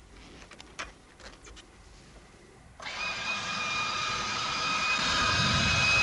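A few faint clicks, then about halfway through the F-16C's engine start begins abruptly: a loud, high whine of several steady tones from the jet fuel starter spinning the engine up, growing louder toward the end.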